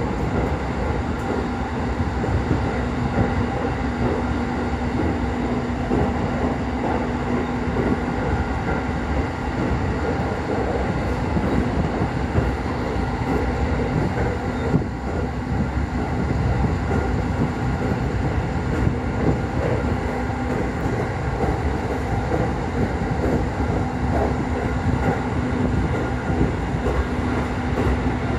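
JR Keiyo Line rapid electric train running at speed, heard from inside the passenger carriage: a steady running noise of wheels on rail, with a faint low hum that comes and goes.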